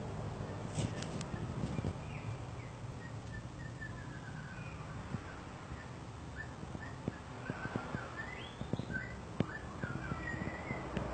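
A flock of Eurasian tree sparrows chirping while feeding on the ground: short high chirps, scattered at first and more frequent in the second half, over a steady low background noise.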